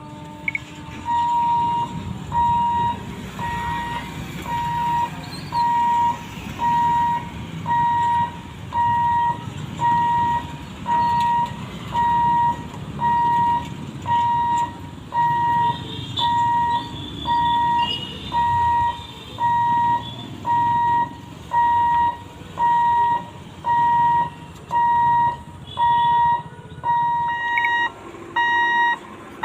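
Level-crossing warning beeper sounding a steady electronic beep about once a second, a single high tone repeated evenly, over a low background rumble.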